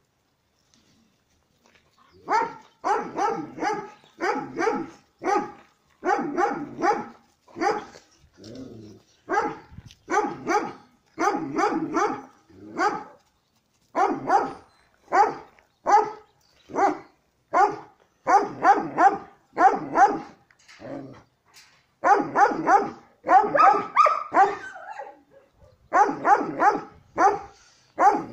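Dog barking over and over in quick runs of several barks with short pauses between them, starting about two seconds in.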